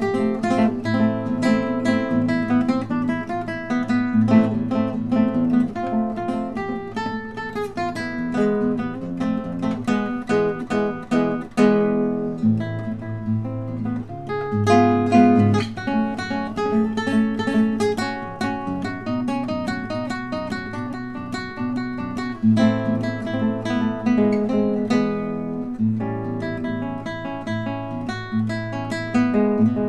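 Solo classical guitar improvising a jam in A: chords and single notes plucked one after another over a ringing low bass.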